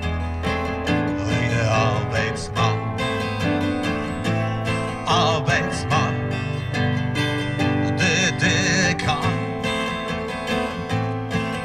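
Live acoustic guitar strummed with electric keyboard accompaniment.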